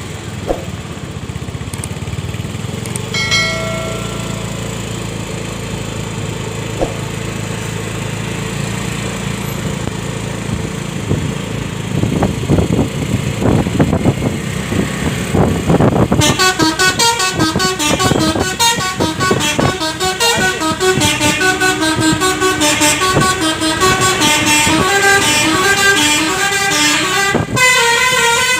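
Bus engine and road noise with a short horn toot early on. About halfway through, a bus's multi-tone telolet musical air horn starts and keeps playing a stepping melody, louder than everything else.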